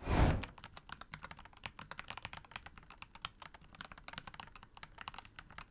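Rapid typing on a mechanical keyboard fitted with tall-profile keycaps such as SA, a dense run of key clicks with a deep, bassy thock. A brief rushing sound opens it.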